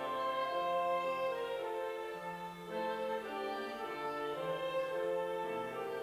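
Small church orchestra of violins with a woodwind playing a slow piece, sustained notes in harmony changing every second or so.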